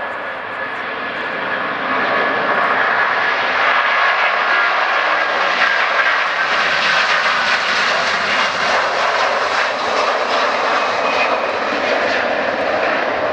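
Airbus A330-300's Rolls-Royce Trent 700 turbofans at take-off thrust as the airliner rolls past, lifts off and climbs away. The steady jet roar grows louder about two seconds in. A whine within it drops slightly in pitch midway.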